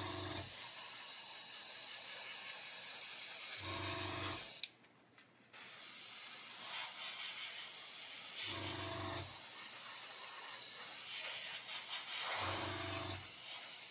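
Airbrush spraying thinned acrylic paint: a steady hiss of air and paint, stopping for about a second around five seconds in and then starting again. A short low hum comes and goes about every four seconds.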